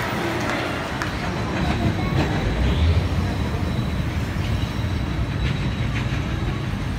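Steady low rumble of a heavy vehicle moving close by, loudest about two to three seconds in.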